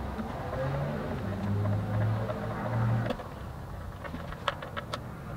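Hand screwdriver turning small brass screws into box hardware: scattered light metal clicks and ticks, a few sharper ones near the end. A low steady hum runs through the first three seconds and stops suddenly.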